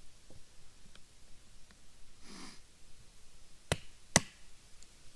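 Two sharp wooden knocks about half a second apart near the end, from small firewood being split with a knife, after a short soft sniff-like breath about halfway through.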